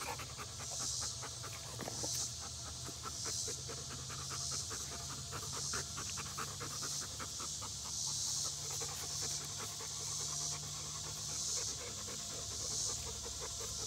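Yellow Labrador retrievers panting fast and steadily, with a high hiss in the background that swells about once a second.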